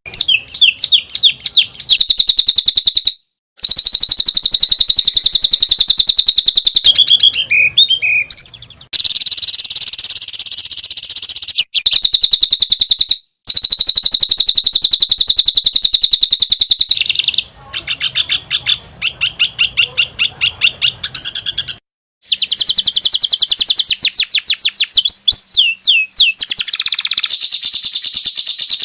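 Recorded songbird song: fast, high trills of rapidly repeated notes with some downward-sweeping notes, cut off abruptly by silence three times as if the recording were spliced.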